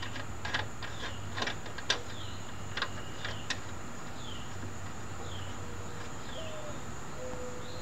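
Light metal clicks and clinks in the first few seconds as a nut is threaded back onto a bolt at the mower deck's pulley by hand. Then a bird's short falling chirp about once a second, with a few low held notes in the second half.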